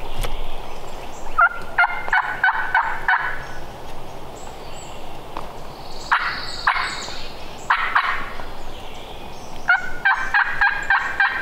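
Wild turkey gobblers gobbling from a distance: a rattling gobble about a second and a half in, more around six and eight seconds, and another starting near the end.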